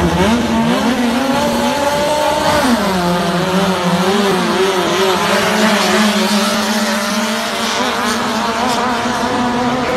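Loud Toyota K-series four-cylinder engine of a Thai longtail racing boat running at full throttle. It revs up as the boat launches, drops a little in pitch about three seconds in, then holds a steady high note as the boat runs at speed.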